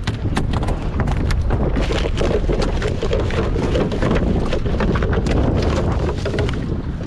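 Strong wind buffeting the microphone in a steady low rumble, with a run of quick knocks and clicks throughout.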